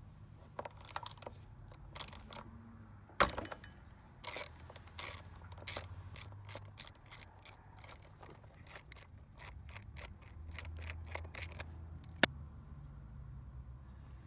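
Socket ratchet clicking in short, uneven runs as it loosens the oil check level bolt on a Honda Elite 250 scooter's final drive case. One sharp click comes near the end.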